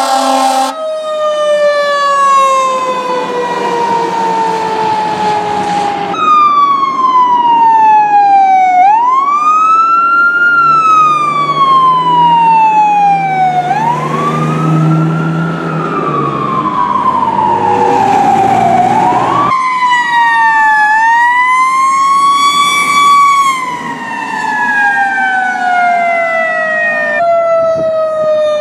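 Fire truck sirens wailing, the pitch sliding slowly down and then sweeping back up in long cycles, changing abruptly several times as different responding trucks follow one another.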